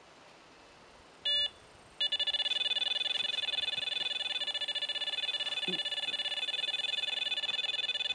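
Electronic carp bite alarm giving a single beep, then about a second later a continuous rapid stream of beeps, the run signal of a fish pulling line off the rod.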